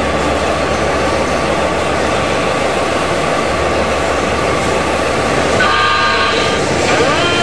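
Fire engine sound effects: a steady rushing engine-like noise, then about two-thirds of the way through a short blast of an air horn, and near the end a siren starting to wind up with a rising pitch.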